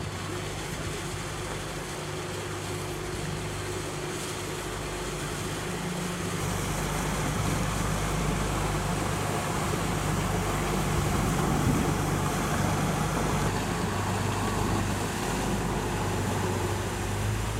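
Engine of a passenger river boat running steadily as it cruises past, its hum growing louder toward the middle and easing off near the end.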